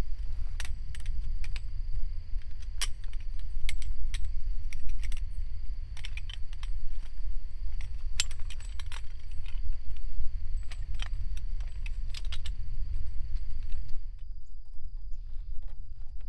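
Wind buffeting the microphone as a steady low rumble, with frequent light taps and clinks and a steady high-pitched tone throughout. The hiss above the rumble drops away near the end.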